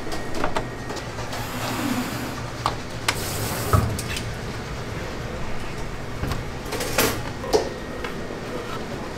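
Kitchen work sounds: scattered clicks and knocks over a steady low hum, with two short hissing bursts about one and a half and three seconds in.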